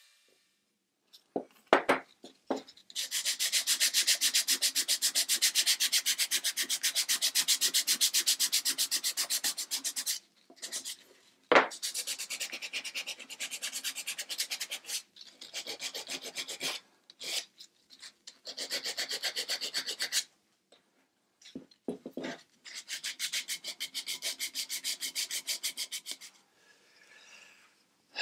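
Sandpaper rubbed by hand over a wooden block, in quick, even back-and-forth strokes. The strokes come in several bursts of a few seconds each, with a few short knocks in between.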